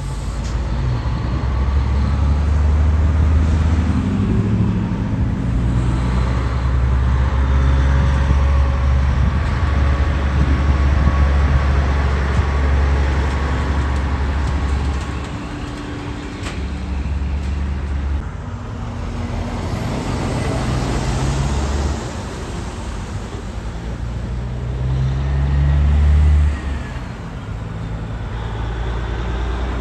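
Diesel semi-truck engines running with a deep, steady rumble as a tractor-trailer pulls out and drives past. The rumble dips twice about halfway through, builds again, and is loudest near the end before dropping off suddenly as a second semi-truck comes along the road.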